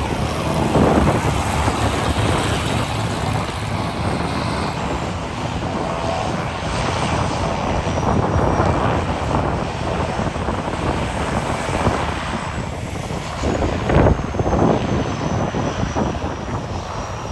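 Airplane engines running loud and steady as an aircraft passes close over the beach, with a faint high whine falling in pitch over the last few seconds.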